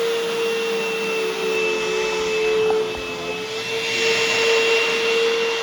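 Upright vacuum cleaner running with a steady motor whine over airflow hiss; the hiss grows louder about four seconds in.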